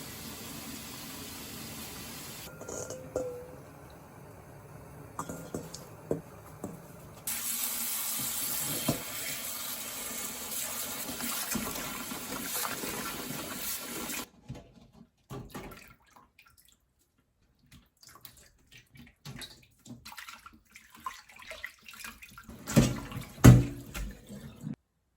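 Water running from a kitchen tap into a sink for several seconds, among scattered clicks and knocks of kitchen handling. The knocks are loudest near the end.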